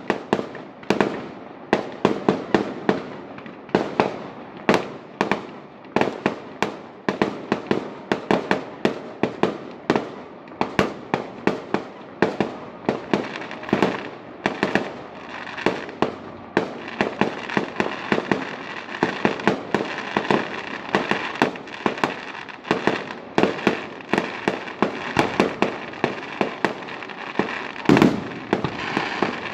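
Fireworks display: a fast run of bangs and pops from bursting shells, several a second, with a thicker crackle from about halfway and the loudest bang near the end.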